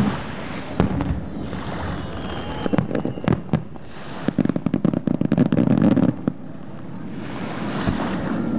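Distant fireworks: a shell bursts about a second in, then a dense run of crackling pops from a crackling shell from about three to six seconds. Beneath it all is a steady wash of surf and wind noise.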